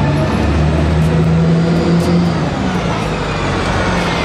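Double-decker bus driving past at low speed, its engine giving a steady drone over road and street traffic noise.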